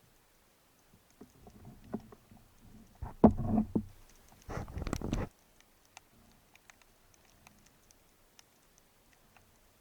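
Underwater knocks and rumbles for about four seconds, loudest a little after three seconds in, then only faint, scattered clicks.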